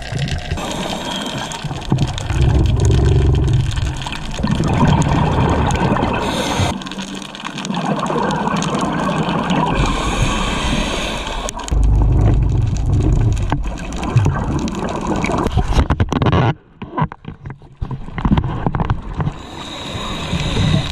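Scuba diver's regulator breathing heard underwater: hissing inhalations and heavy, gurgling bursts of exhaled bubbles, several breaths in uneven rhythm, with a pause of about two seconds near the end.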